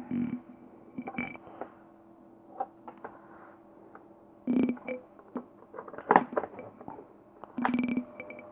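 Handling noises from a room heater being worked on: scattered clicks and knocks, with three louder short ringing metallic clanks about four and a half, six and near eight seconds in.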